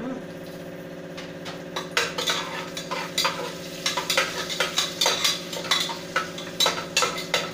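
Metal ladle stirring and scraping inside a pressure cooker while a tempering of spices sizzles in hot mustard oil. The scrapes come in quick, uneven strokes, starting about a second in, over a steady low hum.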